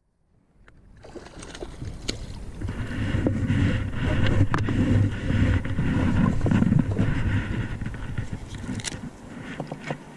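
Water splashing and sloshing around a small inflatable boat as a hooked fish is reeled to it, with rumbling knocks of handling on the rod and boat. It starts after about a second of silence, is loudest in the middle and eases near the end.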